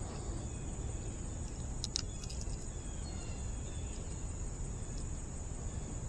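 A steady high insect drone over a continuous low rumble, with a short burst of sharp clicks about two seconds in.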